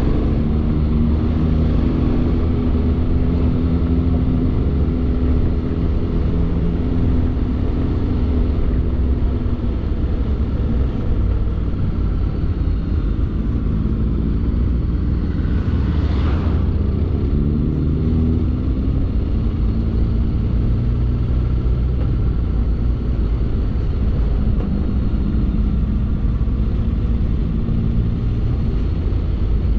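Motorcycle engine running at road speed, heard on board over heavy wind rumble, its pitch rising and falling as the speed changes. A short rushing sound comes about halfway through.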